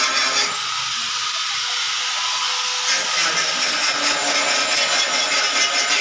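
Angle grinder running steadily against a painted metal gate, stripping off old paint, clearest from about half a second to three seconds in. Background music with a regular beat plays before and after that stretch.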